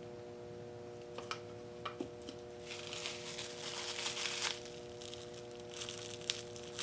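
Plastic bubble wrap crinkling as it is pressed into wet acrylic paint. A few light clicks come first, then two spells of rustling crinkle, over a steady background hum.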